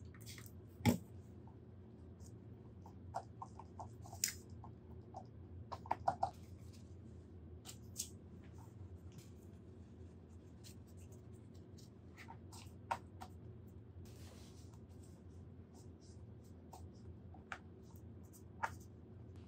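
Hands pressing and smoothing thin rice paper and straw onto a canvas: scattered soft crackles and sharp little taps, the sharpest about a second in, over a low steady hum.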